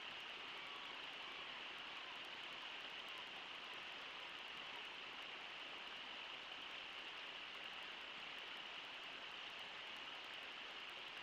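Faint, steady rush of the Brooks River running fast over shallow riffles, with no breaks or separate events.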